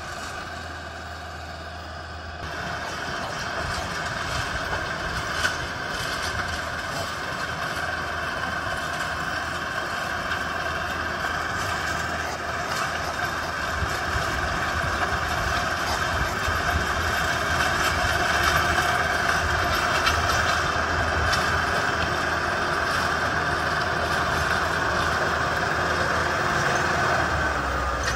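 Yanmar YT490A tractor's diesel engine running steadily under load while it drives a rotary tiller through the soil. It gets louder a couple of seconds in and keeps building as the tractor draws near.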